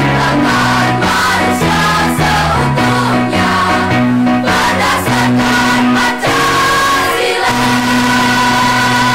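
Children's choir singing a song together, note after note held and changing, and settling into a long held note about seven and a half seconds in.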